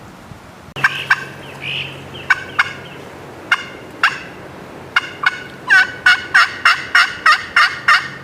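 Turkey calling: a scattering of sharp cutting notes, then, a few seconds in, a steady run of about eight yelps at roughly three a second, the loudest part.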